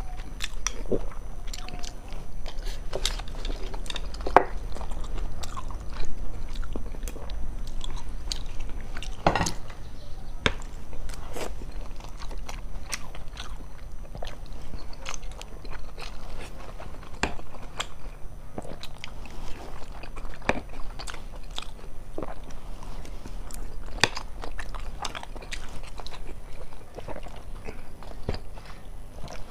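Close-miked person biting and chewing food, with many irregular wet mouth clicks and smacks, the loudest about four and a half and nine and a half seconds in.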